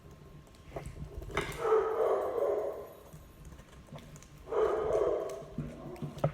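A dog whining or yelping twice. Each call is drawn out, lasting a second or more, and the two come about three seconds apart.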